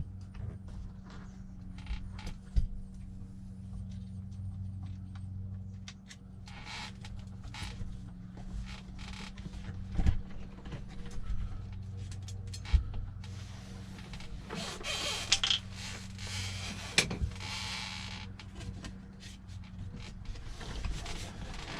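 Hand work on a truck's shifter mounting: scattered clicks, knocks and creaks of tools and metal parts, with stretches of rustling, over a steady low hum.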